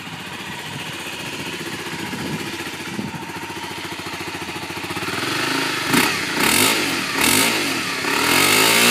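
Honda CBR250R's single-cylinder engine running through its stock exhaust, idling, then revved in three short blips and a longer rev near the end that rises and falls back.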